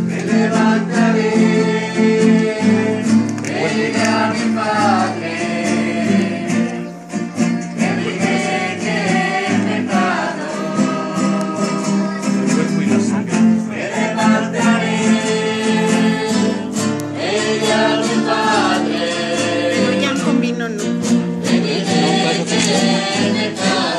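Music: singing over guitar with a steady beat, loud and continuous.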